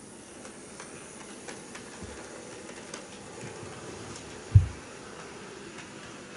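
HO-scale EF81 electric locomotive model running along sectional track, a low motor hum with faint scattered clicks from the wheels on the rails. A single short, low thump about four and a half seconds in is the loudest sound.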